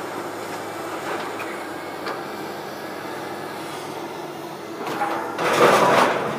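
Demolition machinery working on a factory building: a steady rumble with a few faint clanks, then a louder rush of noise for about a second and a half near the end.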